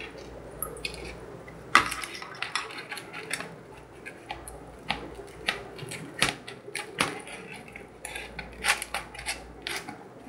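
Small plastic spoon clicking and scraping against a plastic tray in quick, irregular taps, stirring candy-kit powder and water into a paste.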